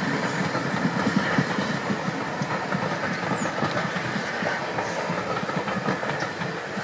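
Steam-hauled passenger train's coaches rolling past, wheels clicking steadily over the rail joints, with a faint hiss.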